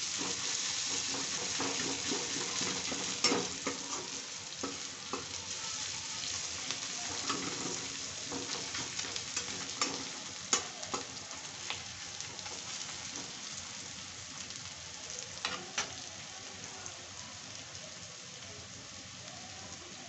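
Sliced onions and tomato sizzling in hot oil in a kadai, stirred with a metal spatula that scrapes and clicks against the pan. The clicks stop a few seconds before the end, leaving only the sizzle, which slowly grows quieter.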